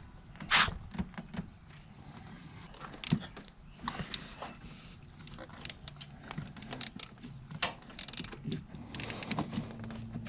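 Irregular metallic clicks and clinks of a socket wrench and extension as a new spark plug is worked into the engine.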